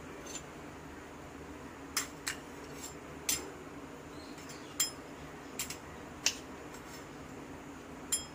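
Steel spoon clinking against the side of a stainless-steel bowl as it stirs chopped nuts and dried fruit: about eight short, irregularly spaced clinks.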